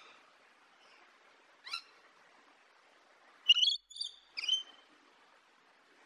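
Rainbow lorikeet calling: one short, high call, then about two seconds later three louder, sharp calls in quick succession.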